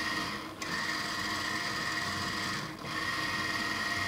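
Small 12-volt, 60 RPM gear motor of an LED mushroom light running steadily with a constant high whine, briefly dipping about half a second in and again near three seconds. It draws very little current, which the owner takes for a healthy motor.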